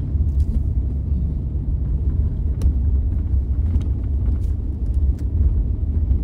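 Ford Raptor pickup driving a rough dirt jungle track: a steady deep rumble of engine and tyres, with a few sharp clicks and knocks from the truck jolting over bumps.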